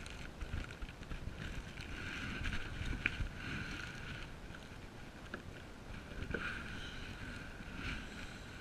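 Wind on the microphone and water sloshing around a sit-on-top kayak, with a few sharp knocks and rustles about three seconds in and again past six seconds as a caught fish is worked out of a landing net.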